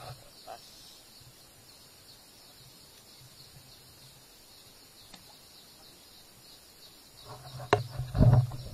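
Quiet outdoor riverside ambience with a steady high-pitched insect drone. Near the end there is a sharp click, followed by a few loud, low thumps and knocking.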